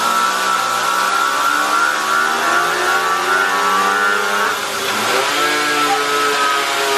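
Small dirt bike engine revving on a dyno roller. The pitch climbs steadily for about four and a half seconds, dips sharply, then holds at a lower pitch.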